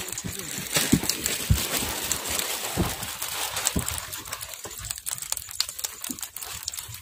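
Wet nylon fishing net rustling and clicking as it is hauled and handled by hand in a boat, with a few dull knocks.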